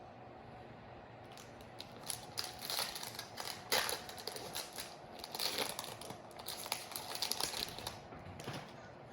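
Wrapper of a Topps Chrome baseball card pack being torn open and crinkled by hand: a run of sharp, irregular crackles from about a second in until near the end.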